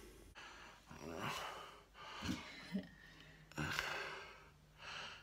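A man's breathing and sighing close to the microphone: several breaths, each about half a second to a second long, with short gaps between them.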